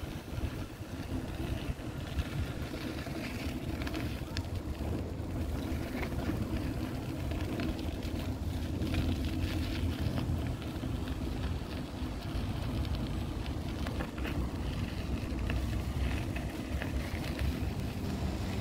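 Outdoor city street ambience: a steady low rumble with a lighter hiss above it and scattered small clicks and knocks.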